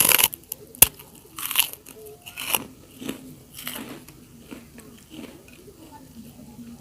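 Crunchy bites into kerupuk crackers and chewing: a loud crunch at the start, a sharp crack about a second in, several more crunches, then quieter chewing.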